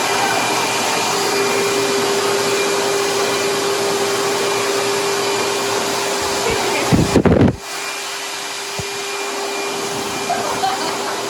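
Pet-wash blow dryer switching on and running steadily on a wet dog's coat, with a constant hum and a faint high whine; a brief loud rumble about seven seconds in.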